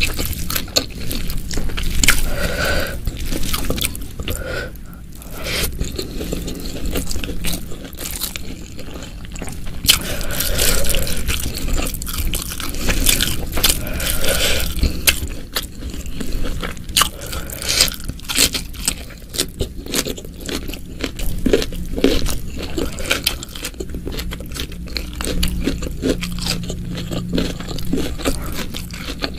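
Close-miked eating sounds: a person biting, chewing and crunching food, with many sharp crackling clicks.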